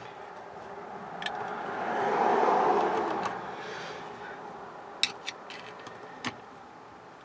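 Small metal clicks and scraping from a screwdriver working inside an opened distributor, prying a part up off its pin. A soft rustling noise swells and fades for about two seconds, followed by a few sharp separate clicks.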